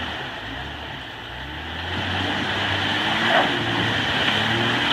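Jeep Cherokee engine working hard as the mud-covered truck climbs out of a mud hole; its note sags about a second in, then rises and grows louder. A short knock about three and a half seconds in.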